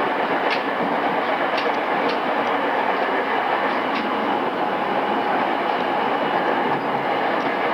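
Cabin running noise of a pre-renewal JR East E217 series electric train, heard from inside a motor car: a steady rumble of wheels on rail at speed, with a few faint rail-joint clicks in the first half.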